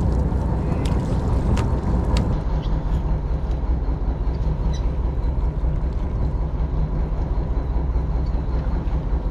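A boat engine running steadily, a continuous low drone. Three sharp clicks come within the first two seconds or so.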